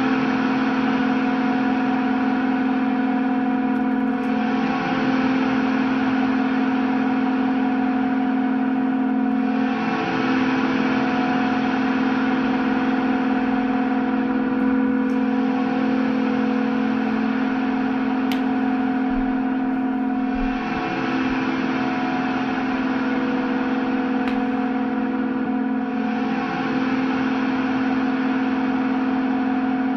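Electric guitar noise drone through effects pedals: a steady sustained low tone with layered tones above it under a dense hissing wash. It is looped, swelling and shifting about every five to six seconds.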